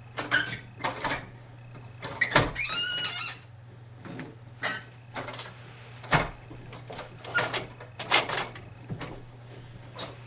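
Carpet being stretched with a power stretcher: irregular knocks, scuffs and rustles from the stretcher and the carpet, with a short squeak about two and a half seconds in. A steady low hum runs underneath.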